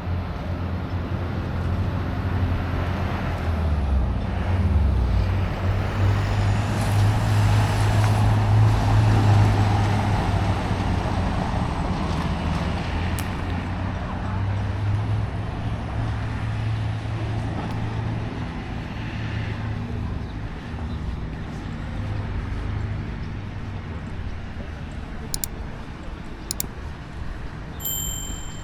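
Traffic noise with a motor vehicle's engine running close by: a deep steady hum that grows louder about seven seconds in, peaks, then slowly eases.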